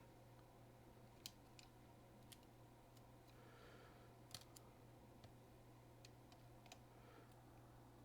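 Near silence: a steady low hum with a handful of faint, sharp clicks scattered through it, from small laptop parts being handled.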